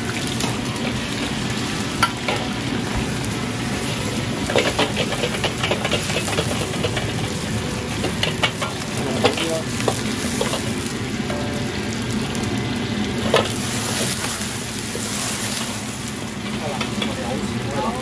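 Vegetables sizzling as they are stir-fried in a wok over a high gas flame, with the steady rush of the burner. A metal wok ladle scrapes and clacks sharply against the wok several times.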